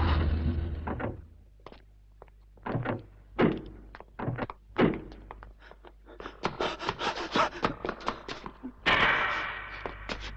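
Music fades out, then a few scattered thuds, then quick running footsteps on a hard floor, ending with a door banged open with a loud crash near the end.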